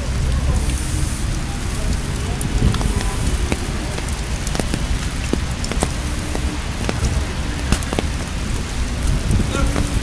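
Wet snow and sleet falling through snow-laden trees, a steady rain-like patter with scattered sharp ticks of drops and icy clumps hitting, over a low rumble.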